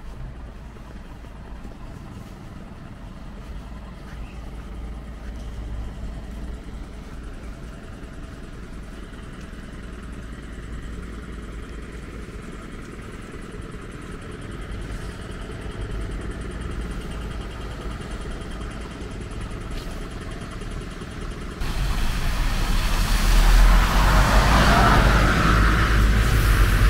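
Street traffic going by with a steady rumble. About three-quarters of the way through it suddenly gets louder as a vehicle passes close.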